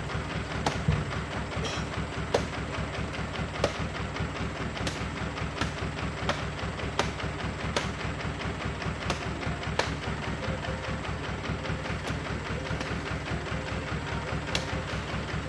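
An engine idling steadily with a fast, even throb, and sharp knocks every second or so as oil palm fruit bunches are handled and loaded.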